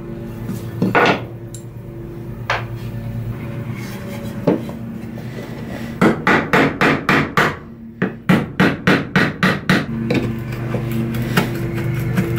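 A few single knocks, then a hammer striking nails in a strip of old wood in two quick runs of light blows, about four a second, starting about halfway through.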